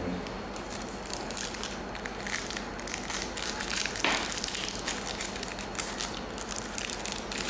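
Crackling, crinkling noise, with a sharper click about four seconds in.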